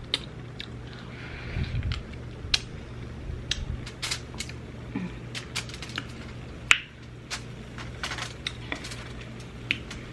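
A person eating close to the microphone: irregular sharp clicks and smacks of chewing and utensils against food and dish, scattered through, over a low steady hum.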